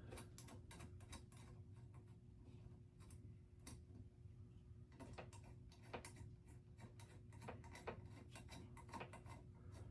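Faint, irregular small clicks and ticks of fan-mounting hardware being handled as the bracket screws are tightened, over a faint steady hum.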